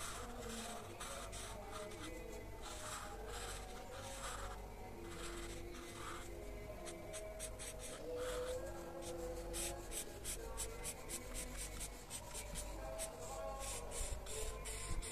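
Felt-tip marker rubbing across paper in short colouring strokes, spaced at first and turning into rapid back-and-forth scribbling about halfway through.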